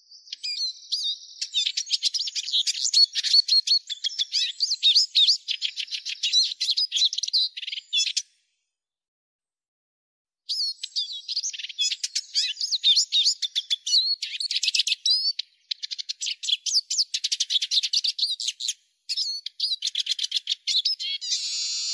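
Eurasian siskin singing: a fast, high-pitched twittering song in long phrases, with about two seconds of silence partway through. A denser, buzzy note comes near the end.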